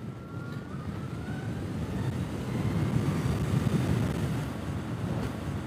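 Zero SR/F electric motorcycle accelerating hard: a faint rising electric-motor whine in the first second or so, under rushing wind on the microphone that grows louder as speed builds.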